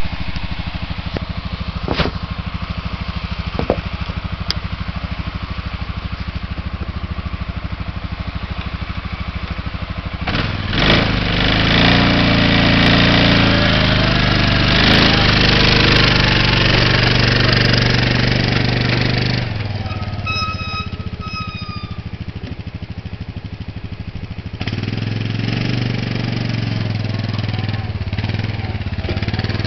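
Single-cylinder four-stroke engine of a 2000 Arctic Cat 500 4x4 automatic ATV idling steadily, then revving up hard about a third of the way in as it labours under the load of towing a 6,000 lb boat. It eases back, with a brief high squeal around two-thirds of the way through, then revs up again near the end.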